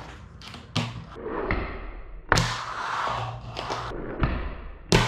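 Fingerboard hitting a desktop: four sharp clacks of the small deck and trucks landing on the table, with the wheels rolling on the surface for about a second after the loudest clack, a little over two seconds in.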